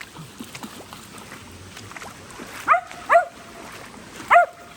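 A dog whining in three short yelps, two close together and a third about a second later. Each jumps quickly up in pitch, then settles into a short held tone.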